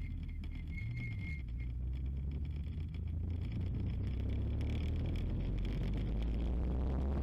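Ariel Atom 3 Supercharged engine running at low, fairly steady revs, with a brief rise in pitch about a second in.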